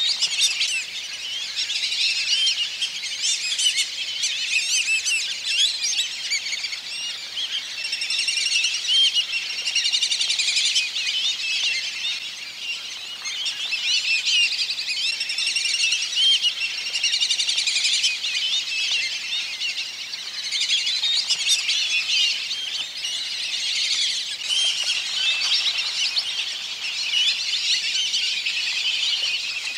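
A flock of black-bellied whistling-ducks calling together: many overlapping high, wavering whistles, swelling and easing every few seconds.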